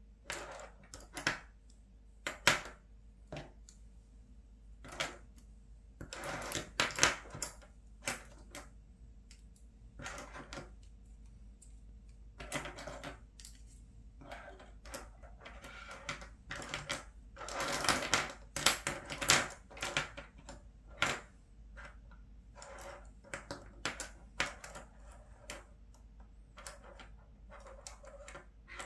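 Plastic ballpoint pens handled and shuffled on a table, clicking and clattering against each other and the tabletop in irregular bursts, with two busier stretches of clatter.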